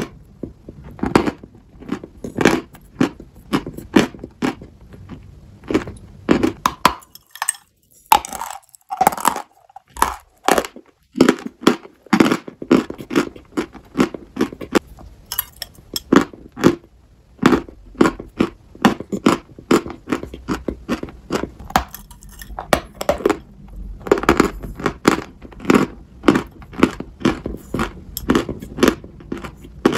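Close-miked chewing of dry chalk: sharp, dry crunches at about one to two a second as the chalk is ground between the teeth, with a few short pauses.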